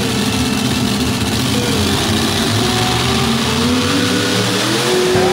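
Supercharged pulling tractor engines running at idle, a steady heavy rumble.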